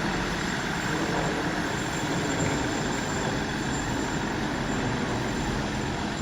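Class 159 diesel multiple unit running, a steady train rumble with no sharp events.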